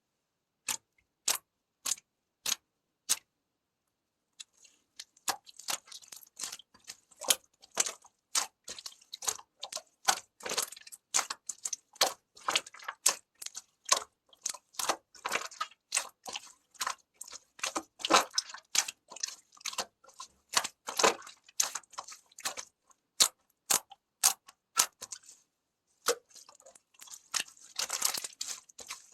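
Heart-shaped clay being broken and crushed. It opens with five sharp clicks about every half second, then after a short pause comes a long, dense run of crackling crunches and snaps, busiest near the end.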